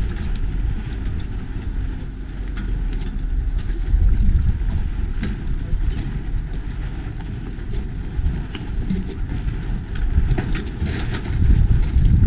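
Wind buffeting the camera microphone: a loud, uneven low rumble that swells twice, with scattered light clicks.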